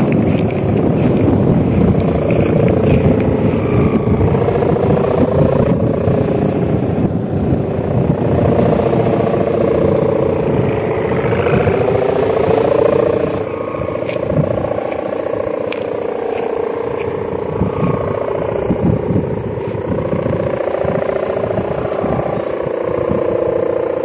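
Kite sendaren, a bamboo-bow hummer with a plastic mika strip, droning steadily in the wind, its pitch wavering slowly up and down. Wind rumbles on the microphone underneath, and the drone gets a little quieter about halfway through.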